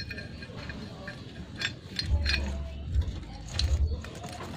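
Motorcycle drive chain being fitted by hand over the rear sprocket: a few separate sharp metallic clinks as the links meet the sprocket teeth, with low handling thumps.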